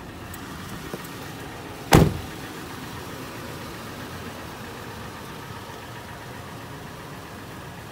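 2013 Toyota 4Runner's 4.0-litre V6 idling steadily, with one loud slam of the driver's door about two seconds in.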